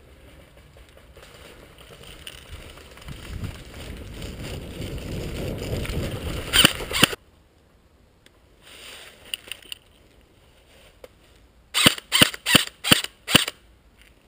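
Airsoft electric rifle (AEG) shots: two sharp cracks about seven seconds in, then a string of five shots about a third of a second apart near the end. Before the first shots, a rustling noise builds up steadily.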